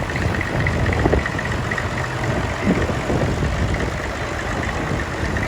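Classic tractor engine running steadily with a low rumble.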